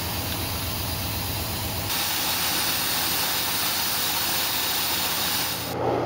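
2004 Dodge Ram 1500's 4.7-litre V8 idling, running rough just after it has been brought back from a no-crank fault. About two seconds in the engine's low pulsing drops out abruptly, leaving a steady hiss.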